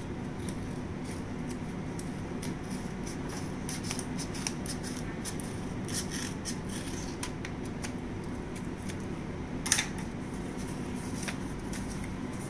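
Scissors cutting through folded sheets of paper: a run of short, crisp snips and paper rustles. One louder sharp sound comes near the end.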